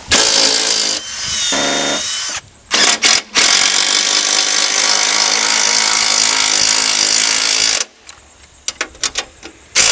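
DeWalt cordless drill driving screws into a wooden pole in several runs: a short run at the start, a slower run, a couple of quick bursts about three seconds in, then a long steady run that stops near eight seconds, followed by a few clicks.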